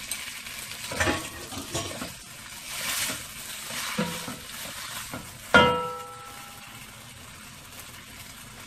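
Spaghetti and vegetables sizzling in a wok while being stir-fried and tossed with a spatula, with scrapes and knocks of the spatula against the pan. The loudest sound is a sharp, ringing clank of the spatula striking the wok a little past halfway.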